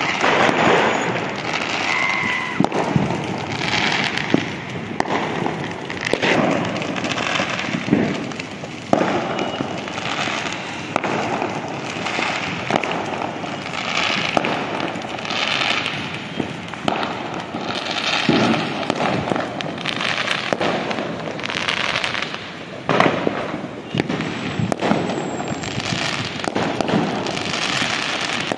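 Fireworks and firecrackers going off all around without a break: a steady mass of bangs, pops and crackle, with sharper single bangs every second or so, some louder and closer than others.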